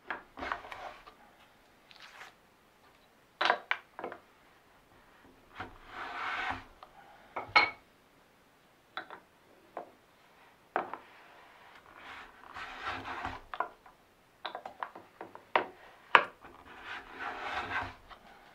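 Hand brush sweeping across a wooden board in rubbing strokes of about a second each, with sharp wooden knocks in between.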